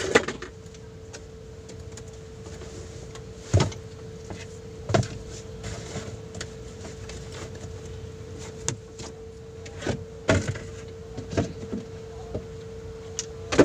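Wiping and handling things on a truck's dashboard inside the cab: a few knocks and light taps and rubbing over a steady hum.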